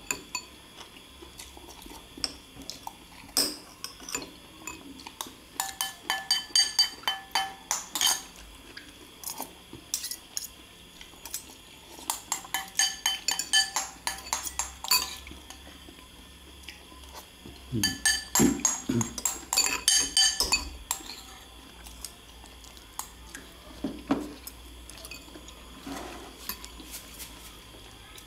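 Metal spoons and forks clinking and scraping against ceramic bowls during a meal, in several bursts of rapid clinks.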